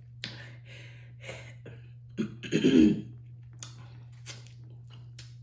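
A woman coughs and clears her throat about two seconds in, a reaction to the heat of hot red pepper in spicy seafood boil. Faint mouth and eating clicks sound around it.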